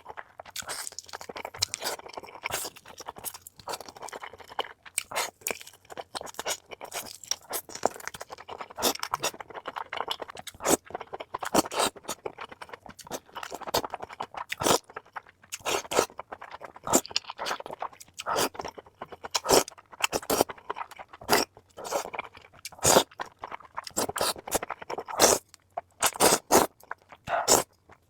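Close-miked person chewing crunchy food: many sharp, irregular crunches with softer chewing between them.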